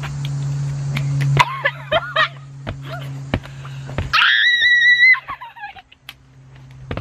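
Two young women screaming and shrieking from the burn of hot peppers just eaten, in broken cries, then one high, piercing scream held for about a second near the middle that trails off.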